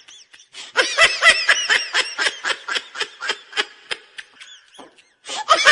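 High-pitched laughter: a rapid run of short ha-ha bursts, about four a second, fading out over its last second or so. It breaks off, then starts again just at the end.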